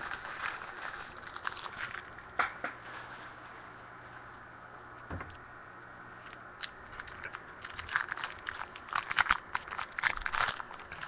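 Crinkling and tearing of a plastic trading-card pack wrapper as a pack is ripped open and the cards are handled. Crackly bursts at first, a quieter stretch with a single knock around the middle, then denser, louder crinkling in the last few seconds.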